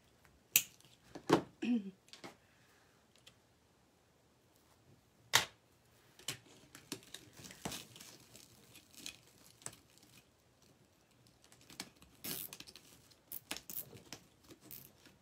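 Deco mesh rustling and crinkling as hands handle and tie folded mesh petals onto a wreath form, with scattered sharp clicks and taps.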